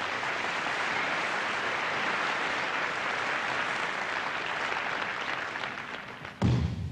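Large audience applauding steadily, slowly dying away, then a heavy thud near the end.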